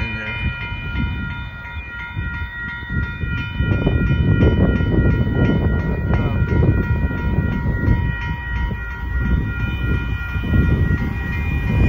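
Railroad crossing bell ringing steadily with a fast repeating strike while a Union Pacific tank-car freight train passes, its low rolling noise growing much louder about four seconds in.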